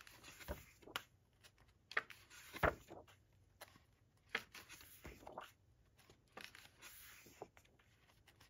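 Glossy paper booklet pages being turned and handled: faint rustling with a few sharper paper flicks at irregular intervals.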